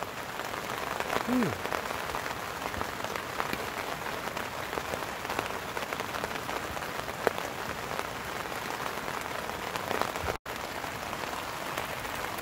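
Steady rain on a tent fly, heard from inside the tent: an even hiss dotted with many small drop ticks, with a brief break near the end.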